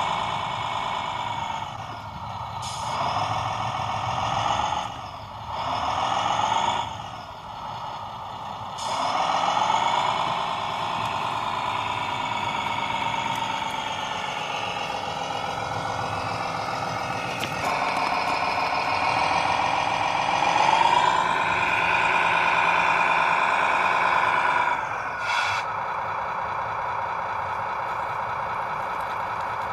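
Electric motors of radio-controlled model trucks whining, the pitch gliding up and down as they speed up and slow down, with brief drop-outs in the first few seconds.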